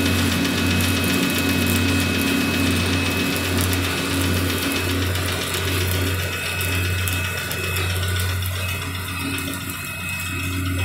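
Stick (shielded metal arc) welding of a butt joint: the arc crackling steadily as the electrode burns, over a steady low hum.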